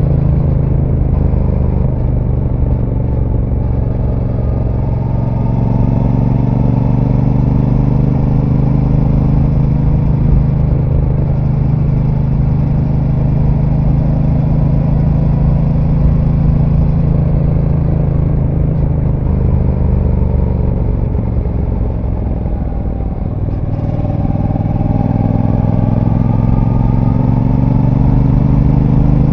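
Brixton Cromwell 1200's 1,222 cc parallel-twin engine on its stock exhaust, heard from on board while riding. It runs steadily under part throttle, eases off about two-thirds of the way through, then rises in pitch as it accelerates again near the end.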